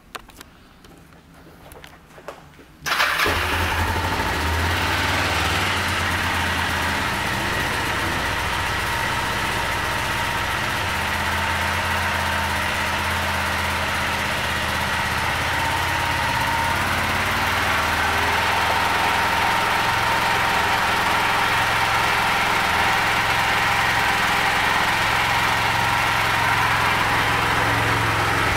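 2009 Kawasaki Ninja 500R's parallel-twin engine firing up about three seconds in, then idling steadily.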